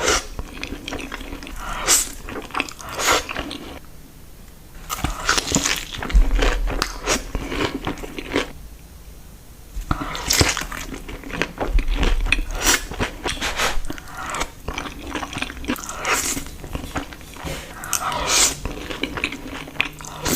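Close-miked eating of crispy fried chicken tenders: crunchy bites and chewing in repeated bursts, with two short pauses.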